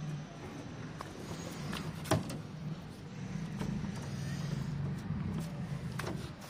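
A steady low engine hum, with a single sharp click about two seconds in.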